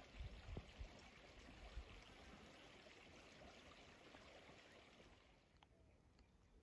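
Faint trickle of a shallow creek, barely above silence, dropping away about five seconds in.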